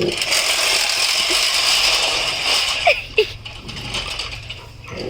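Lawnmower running with a steady mechanical whir and rattle that falls off about three seconds in.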